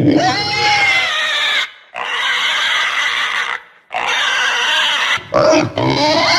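Pig squealing: three long, high calls of about a second and a half each, then a few shorter ones near the end.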